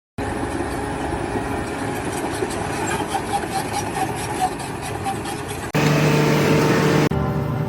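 A machine's engine running steadily, with the sound changing abruptly to a steadier pitched hum about six seconds in.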